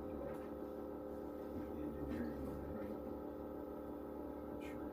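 Steady hum of a running machine, made of several held tones.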